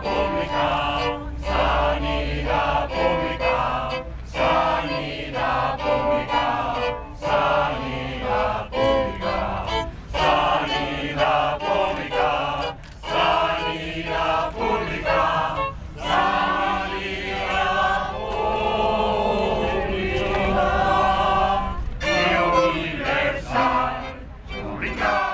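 A street choir of men and women singing a protest song together in unison, accompanied by violin and acoustic guitar.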